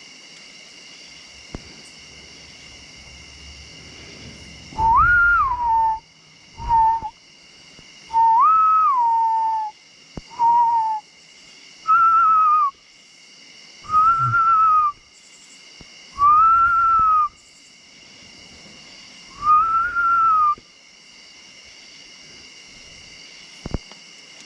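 A person whistling a slow tune of about eight clear notes, some stepping up and back down and later ones arching, with pauses between them. A steady chorus of crickets and other insects shrills in the background throughout.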